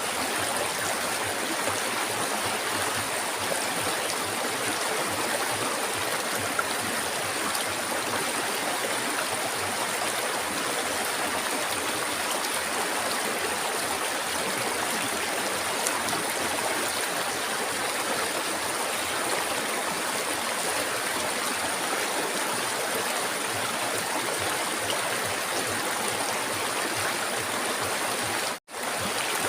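Flowing river water: a steady, even rushing and gurgling. It cuts out for a split second near the end.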